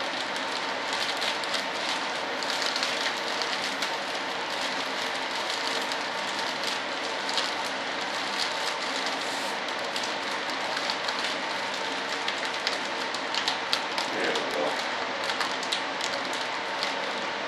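Plastic vacuum-bagging film crinkling and crackling as hands press and smooth it down over a resin-wet foam part. A steady machine hum runs underneath.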